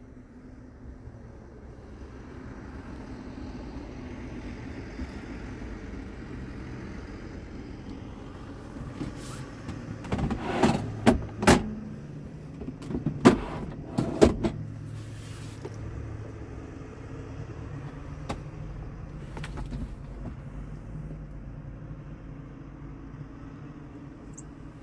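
Storage drawer under the bunk of a truck's sleeper cab being handled: a cluster of sharp plastic clicks and knocks from about ten to fourteen seconds in, over a steady low hum in the cab.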